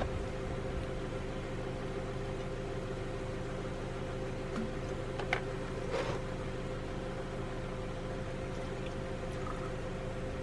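A steady machine hum with a low drone, broken by a couple of light clicks about five and six seconds in.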